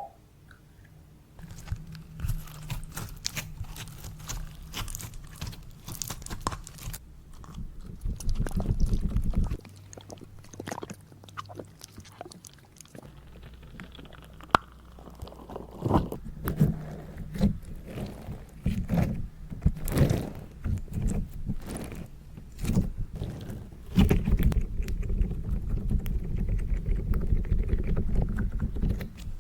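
Slime being squished and stretched by hands: sticky, wet squelches and many small popping clicks, getting denser and steadier in the last few seconds.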